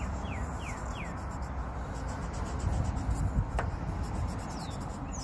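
Marker drawing on an eggshell: scratchy rubbing with a few short squeaks that fall in pitch, and a single click in the middle.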